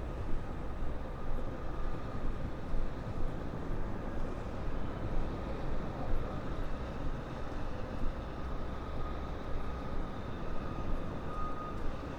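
Steady low rumble of city traffic in an industrial street, with a faint steady hum over it.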